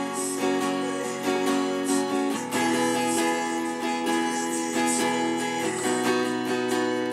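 Acoustic guitar played by hand, a steady run of plucked chords that changes chord about two and a half seconds in and again near the end.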